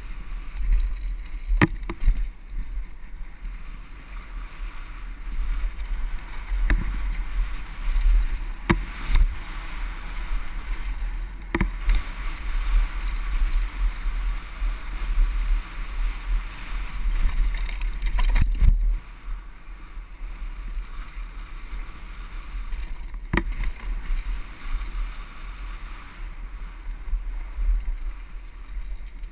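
Mountain bike rolling fast down a dirt trail, heard from a camera on the rider: wind buffeting the microphone as a steady rumble, tyre and drivetrain noise, and a handful of sharp clacks as the bike hits bumps.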